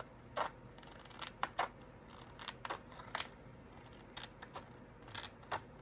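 Paper being handled on a desk during craft work: light clicks, taps and rustles at irregular intervals.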